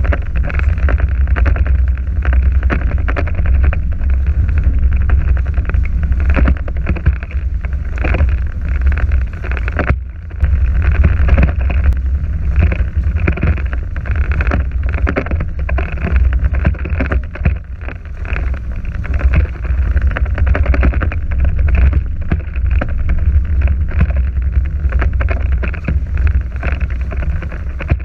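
Wind buffeting the microphone in a loud, gusty low rumble, over the hiss of water running past the hulls of a NACRA 5.0 catamaran under sail.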